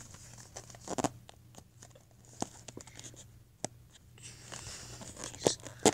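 A cardboard trading-card box and its packs being handled: scattered light taps and clicks with a short stretch of soft rustling.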